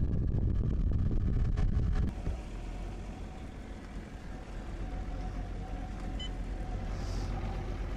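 Outboard motor of a boat running underway, with the rush of water and wind. It is loud for about the first two seconds, then drops suddenly to a steadier, quieter hum.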